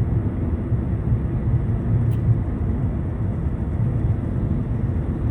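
Steady low rumble of road vehicle noise, with a brief faint high click about two seconds in.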